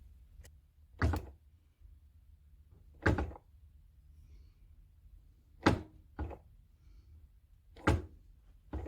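Six sharp knocks spaced irregularly, the work and the table of a mill-drill being nudged by hand to bring the drill bit onto the mark before locking it down.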